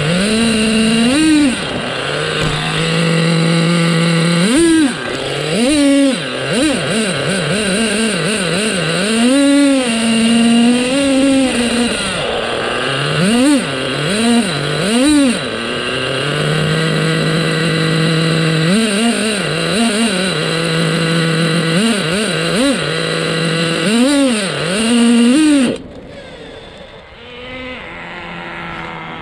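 Nitro engine of an HPI Trophy Buggy (V1 3.5), heard from a camera mounted on the car, revving up and down again and again with short steady stretches between. Near the end the engine sound stops abruptly.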